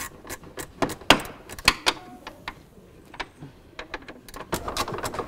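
Irregular sharp clicks and knocks of hands and tools working on a stripped-down car's interior panels and body, the loudest a little after a second in.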